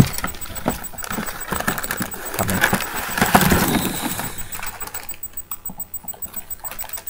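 Rustling and small knocks as a person moves about and handles things close to the microphone, busiest in the first few seconds and quieter after about five seconds in.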